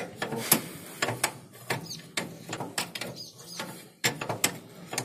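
Irregular metallic clicks and clinks of a hand tool working on the fittings of a round baler, a sharp tick every so often as the part is turned.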